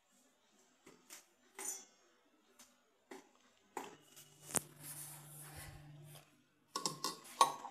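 Broken Oreo biscuit pieces dropped into a stainless-steel mixer-grinder jar: scattered light taps and clinks, with one sharper click about halfway through.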